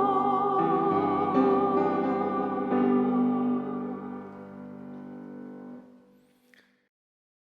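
Closing chords of a piano hymn accompaniment, struck a few times and left to ring, fading away about six seconds in, as a singer's last held note with vibrato trails off at the very start.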